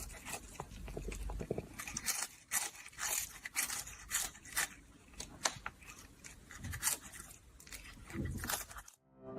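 A pet crunching and chewing food, with irregular crisp crunches. Near the end the sound cuts off and piano music begins.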